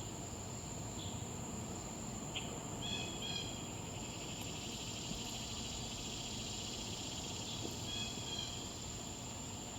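Insects calling: a steady high-pitched trill runs throughout, and a swamp cicada's buzz swells up from about three seconds in and fades near the end. A few short bird calls cut in about three seconds in and again near the end.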